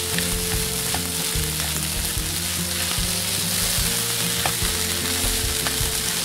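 Kimchi fried rice sizzling in a hot oiled frying pan as it is stirred and tossed, with a few light clicks of the utensil against the pan.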